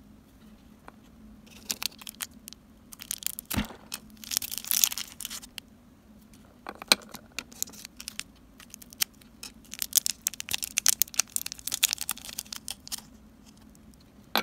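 Crackly rustling of a plastic mesh net bag and small clicks of tiny plastic toy vegetables being handled, in irregular spurts, with a soft knock about three and a half seconds in and another near seven seconds.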